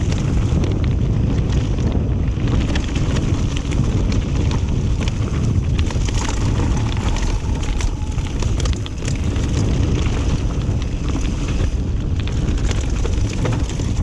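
Wind buffeting the camera microphone as a mountain bike rolls fast down a dirt singletrack, with a steady rumble from the tyres and frequent small knocks and rattles from the bike over bumps.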